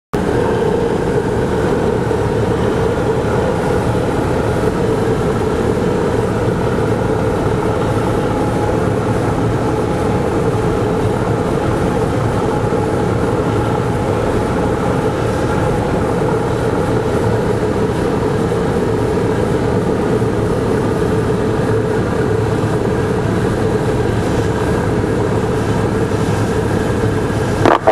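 Cessna 172's piston engine and propeller droning steadily, heard inside the cockpit on approach to landing, with wind noise over the cabin.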